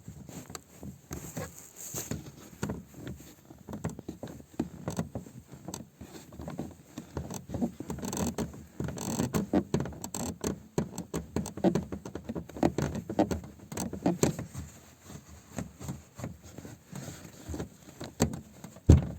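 Irregular short creaks and squeaks from a car, coming in uneven clusters that grow busier in the middle: the elusive squeak the owner is tracking down.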